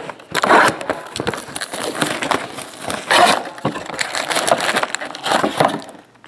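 Foil trading-card packs crinkling and a cardboard card box rustling as the packs are handled and pulled out, with several louder crackles.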